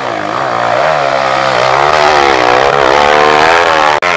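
Dirt bike engine revving hard under load up a steep dirt climb, its pitch rising and falling with repeated throttle blips. The sound cuts out for an instant near the end, then the revving carries on.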